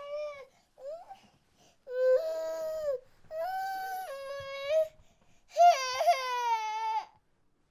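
A baby crying in separate wails. Two short whimpers come first, then three longer cries of a second or more each, with brief pauses for breath between them. The last cry is the loudest.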